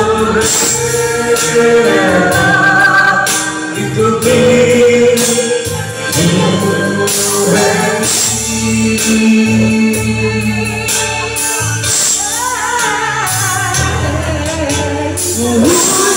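Men singing into microphones through a PA over recorded backing music with a steady beat, the melody wavering with vibrato.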